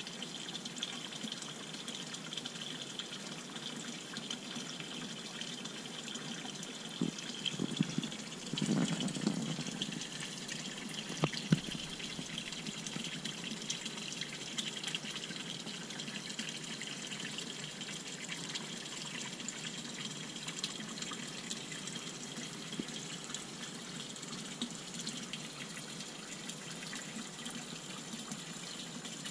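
Water pouring from a pipe into a small pond, a steady trickling splash. A few louder splashes come about a third of the way in, then a single sharp knock.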